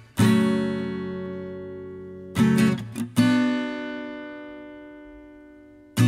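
Acoustic guitar strumming chords in a slow song intro, each chord left to ring. There is one strum just after the start and a few quick strokes about two and a half to three seconds in, and the last chord dies away slowly.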